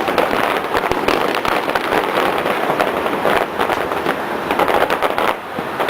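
Fireworks display going off in rapid, continuous volleys of overlapping bangs and crackles, easing briefly near the end.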